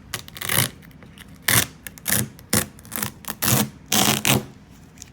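Heat-softened vinyl decal being peeled off a bass boat's hull in a run of short pulls, about eight in all, each a brief burst of tearing noise.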